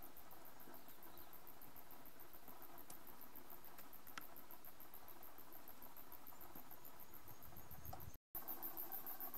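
Faint bush ambience with insects chirring in a very high, even pulse, about seven times a second, and a couple of soft ticks. The sound cuts out for a moment near the end, then comes back slightly louder.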